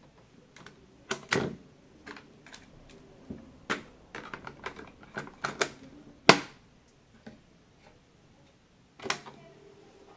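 Mechanical clicks and plastic clacks of a National RQ-339 portable cassette recorder being handled: keys pressed, the cassette door opened, a tape swapped in and the door shut. A dozen or so separate sharp clicks, the loudest about six seconds in.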